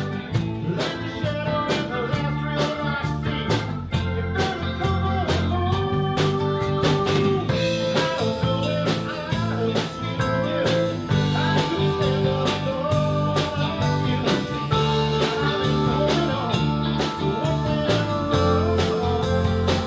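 Live blues-rock band playing an instrumental passage of a song: guitar lines with held and bent notes over bass and a steady drum beat.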